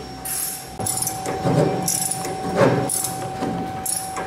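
Steel spanner unscrewing the spinning box from the underside of a lab melt spinning machine's material barrel: sharp metallic scrapes and clinks every second or so, over a steady hum.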